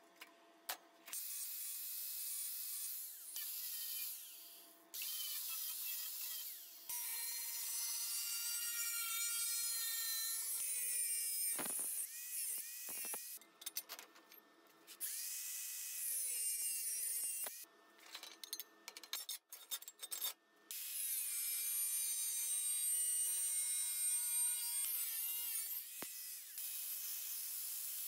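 Angle grinder deburring stainless steel sheet edges in several passes: a steady motor whine under the hiss of the disc on the metal, stopping and starting abruptly every few seconds.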